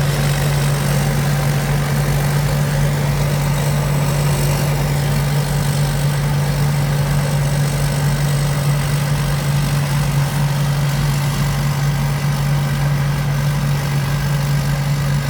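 Large rice combine harvester's engine running at one steady, unchanging pitch.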